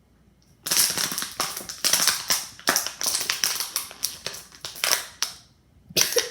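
A plastic water bottle being squeezed, crackling and crinkling in a rapid run of sharp crackles for about four and a half seconds, with a short burst of crinkling again near the end.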